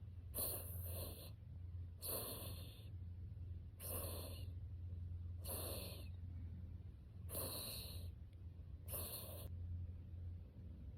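Mame shiba puppy snoring in deep sleep: six snoring breaths at an even pace, about one every second and a half.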